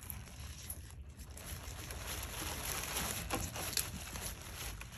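Knife cutting and scraping through the scales and tough hide behind a large fish's head: a rasping scrape that grows louder through the middle, with a few sharp clicks.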